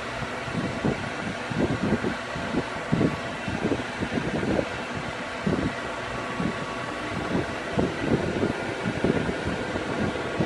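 Heat gun blowing steadily, drying freshly applied liquid vinyl on a vinyl seat cover, with irregular low rumbles from the airflow and handling.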